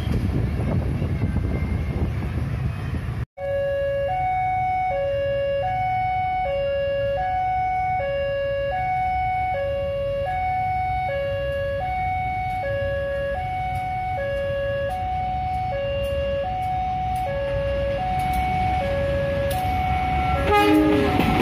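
Railway level-crossing warning alarm: an electronic two-tone signal alternating evenly between a higher and a lower note, each held for about three-quarters of a second, which warns of an approaching train. Before it, a departing train's rumble fades. Near the end, the arriving diesel train's noise rises loud.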